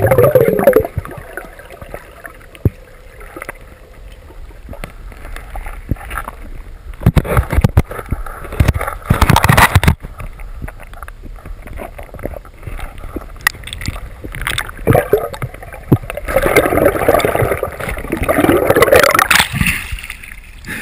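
Water rushing and bubbling around an underwater action camera on a freediving spearfisherman, uneven with no steady tone. Louder stretches of bubbling and water noise come about a third of the way in and again as he rises to the surface near the end.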